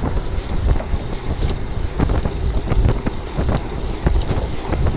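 Wind buffeting a bike-mounted camera's microphone while riding, a loud steady rumble, with irregular sharp knocks and rattles from the camera and bike over the road surface.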